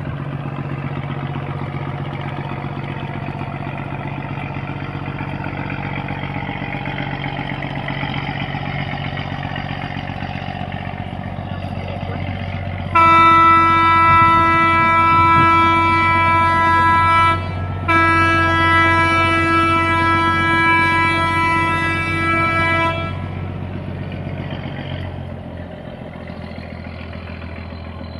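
Barge's diesel engine running with a steady low drone. About halfway through, a boat horn sounds two long blasts, each about five seconds, with a short break between them, louder than the engine.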